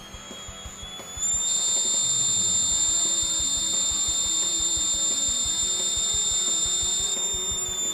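Piezo buzzer sounding a continuous high-pitched tone. It is quiet at first, jumps to high volume about a second in as the 1k potentiometer in series with it is turned to low resistance, and drops back to a quieter tone near the end.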